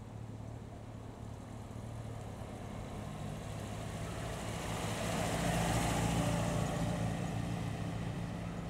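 Vintage MG T-series open sports car's four-cylinder engine running at low speed as it drives past. It grows louder to its closest about six seconds in, with some tyre hiss, then fades as the car pulls away.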